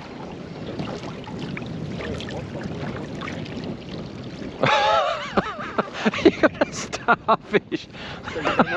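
Steady rush of wind and water around a small open boat. About five seconds in, a person's voice breaks in with a loud exclamation, followed by a run of short vocal bursts.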